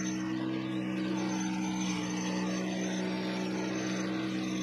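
Vevor MX400 mini metal lathe running at a steady speed, its chuck spinning with a brass workpiece: a steady hum made of several even tones.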